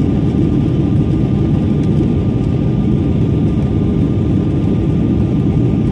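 Cabin noise inside a Boeing 777-200ER climbing out after takeoff: the loud, steady rush of the engines at climb power and the airflow over the fuselage, deep and even, with a thin steady whine above it.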